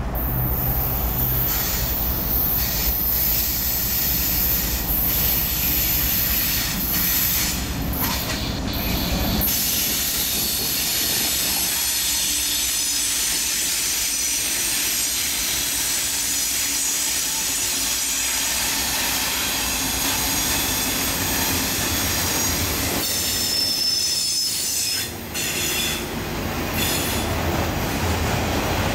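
Norfolk Southern diesel freight locomotive passing close by with its engine rumbling, the low rumble falling away after about nine seconds. The intermodal flatcars loaded with truck trailers then roll past with a continuous steel-wheel rolling noise, high-pitched wheel squeal and some clickety-clack.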